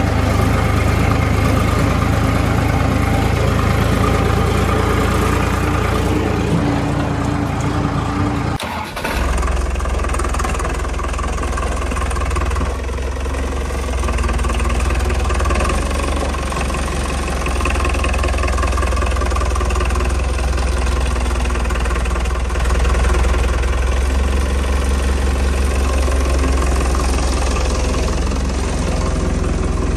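Engine running steadily with a low hum. The sound breaks off for a moment about nine seconds in, then resumes with a deeper hum.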